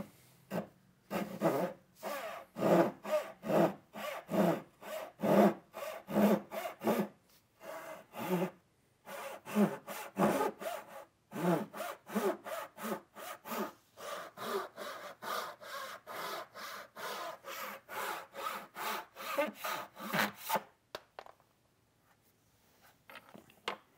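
Japanese dovetail pull saw crosscutting a wooden board by hand, a steady rasp of strokes about two a second. The strokes stop about 21 seconds in as the saw cuts through.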